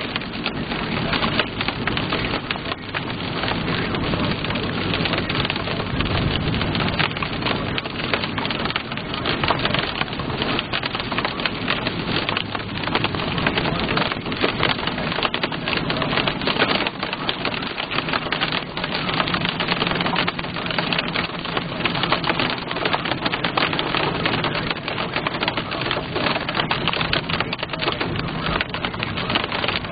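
Heavy rain mixed with small hail pelting the roof and windshield of a moving car, heard from inside the cabin: a loud, dense, unbroken patter of hits.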